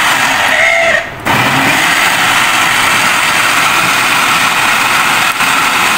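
Electric blender running, churning mango and sugar into juice: a loud, steady motor whirr that cuts out for a moment about a second in and then runs on.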